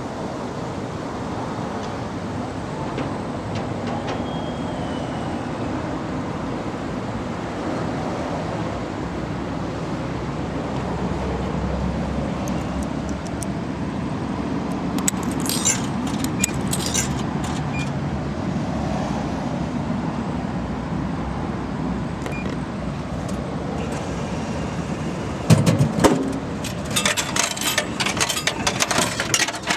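Coins going into a vending machine's coin slot, a few metallic clinks about halfway through, over a steady background rumble. Near the end a loud thump and rattling as the ice-pop vending machine dispenses.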